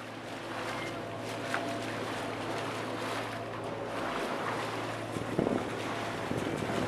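Sea water rushing along the hull of a moving catamaran, with wind on the microphone and a steady low drone underneath.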